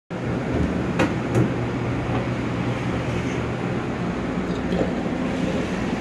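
Commercial stainless-steel dishwasher running: a steady motor and pump hum with a continuous rushing noise. Two short knocks come about a second in.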